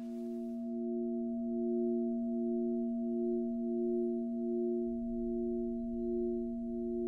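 Sustained musical drone of a few held, pure-sounding tones, one of them swelling and fading a little more than once a second, with a low rumble coming in about five seconds in; a tense score bed.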